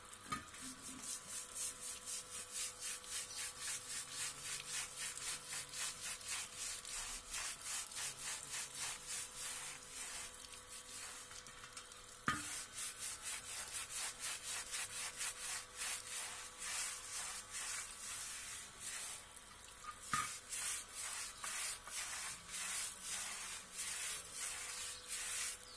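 Stiff plastic-bristled brush scrubbing a wet, rusted motorbike spoke-wheel rim in quick, rhythmic back-and-forth strokes, with water running over it. Two sharp knocks, one about halfway through and one later on.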